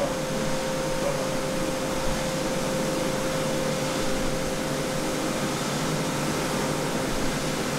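Steady whir of fans and blowers in a coffee roasting room, running without change, with one steady humming tone through it.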